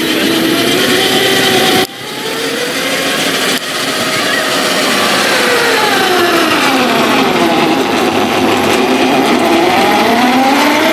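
A 5-inch gauge diesel-outline miniature locomotive running, its drive giving a steady pitched whine that rises and falls in pitch as its speed changes. The sound breaks off abruptly twice in the first few seconds.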